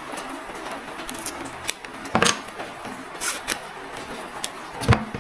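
Hands working the straps off a plastic action-camera mount: a few scattered clicks, scrapes and rustles over a steady hiss.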